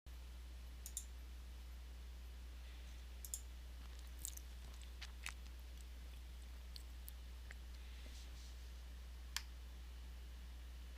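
A few faint, sharp clicks scattered over a steady low hum.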